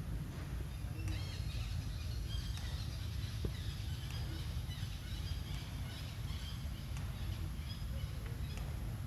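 Outdoor ambience: scattered short high bird chirps over a steady low rumble.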